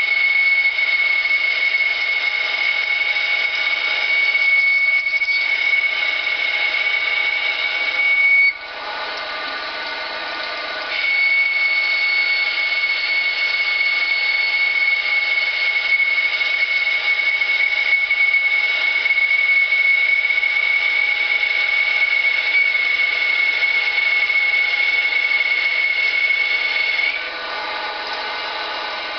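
Schaublin CNC lathe running with a steady high-pitched whine over a bed of lower steady tones. The whine drops out for about two seconds roughly a third of the way in, then returns, and stops again shortly before the end.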